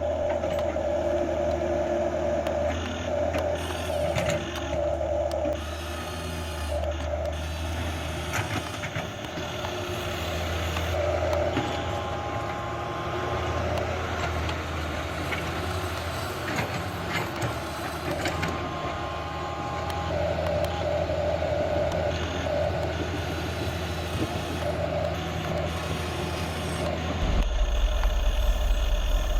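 Huina RC excavator running: a steady low engine-like hum with short beeping tones coming and going, and mechanical whirring. Near the end the hum drops lower and gets louder.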